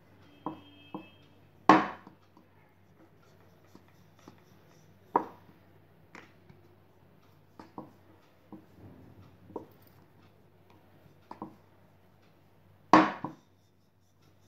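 Wooden rolling pin rolling out dough on a stone rolling board, with irregular sharp clacks as the pin knocks on the board, two of them louder, about two seconds in and near the end.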